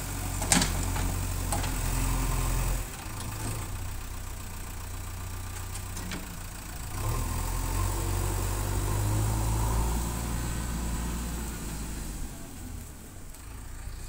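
Backhoe loader's diesel engine running, louder for the first few seconds and again in the middle as it works, dropping back toward idle in between and near the end. A sharp knock sounds about half a second in.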